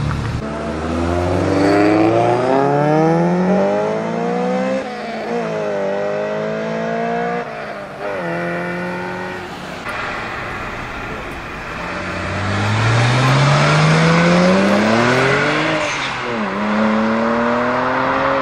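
A high-performance car accelerating hard through the gears, loud. The engine's pitch climbs steadily and drops sharply at each quick upshift. Around halfway the engine note gives way to a rushing hiss, then a second hard run through the gears begins.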